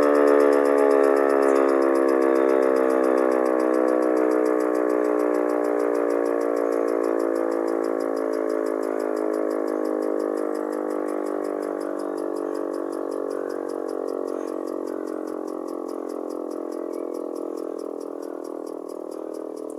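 Civil-defence siren winding down after its test signal. Its tone slowly falls in pitch and fades steadily as the rotor coasts to a stop.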